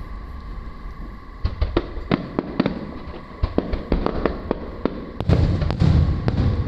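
Aerial fireworks going off: a quick string of sharp bangs and crackles, with deep booms joining in from about five seconds in.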